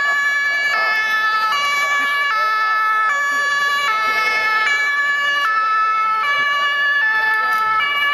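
Ambulance's two-tone siren, steadily alternating between a higher and a lower note, each held for a little under a second.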